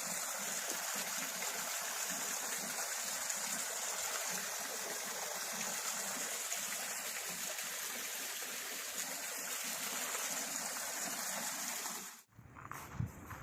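Steady rush of falling water from a park waterfall. It cuts off abruptly about twelve seconds in, leaving quieter surroundings with a few soft knocks.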